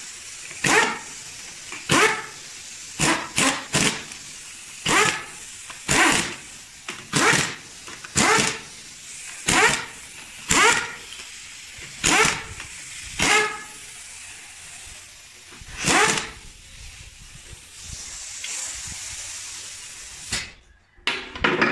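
Pneumatic impact wrench run down the cylinder head bolts of a Mitsubishi 4D33 diesel in about fourteen short bursts, one bolt after another, with a steady hiss of air between them. The hiss stops about 20 seconds in, followed by a few light knocks.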